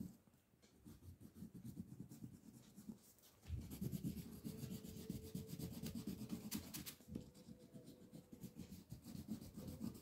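Yellow crayon rubbing back and forth on drawing paper as an area is coloured in: quick, faint scratchy strokes that begin about a second in and become steadier and denser from about three and a half seconds in.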